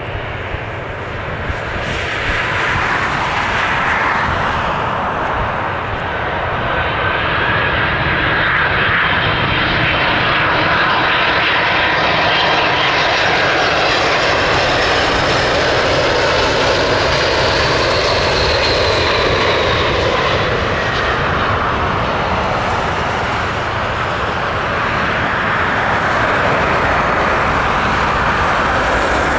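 Airbus A300-600 freighter's turbofan engines on final approach: a steady jet roar with a high whine that grows louder as the plane comes close. The whine's pitch falls slowly as the jet passes, and the engine noise swells again near the end as it rolls out on the runway after touchdown.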